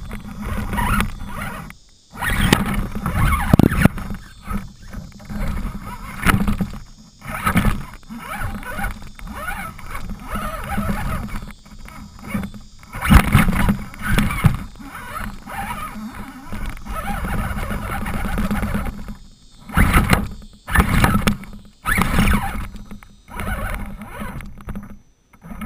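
Electric RC rock crawler's motor and drivetrain whining in stop-start bursts as it climbs over rocks, heard close up from the on-board camera, with tyres and chassis scraping and knocking on the rock.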